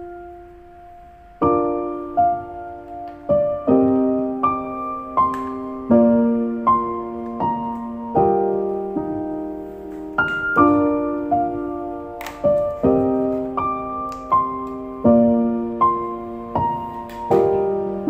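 Background piano music: a slow, gentle line of struck notes and chords, which thins out at the start and picks up again about a second and a half in.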